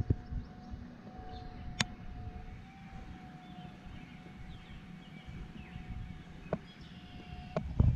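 Outdoor background: a distant engine's faint steady hum over low rumbling noise, with faint bird chirps and a few sharp clicks, one about two seconds in and two near the end.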